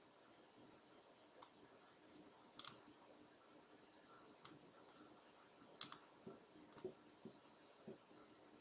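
Faint computer mouse clicks, about eight spread irregularly over several seconds, against near silence.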